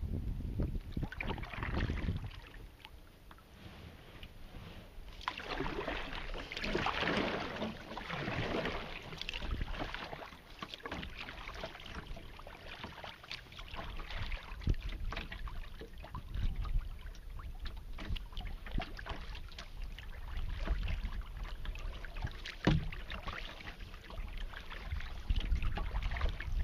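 Water splashing and lapping against a kayak's plastic hull as it is paddled through choppy water, louder for a few seconds about a quarter of the way in, over a low wind rumble on the microphone.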